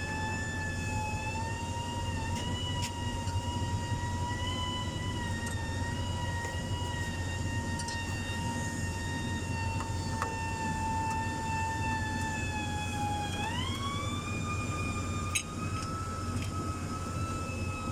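Cummins KTA50 V16 diesel engine running after a general overhaul, a steady high whine riding over the engine's low running noise. About 13 seconds in the whine glides up in pitch and holds there as the engine speeds up toward rated speed.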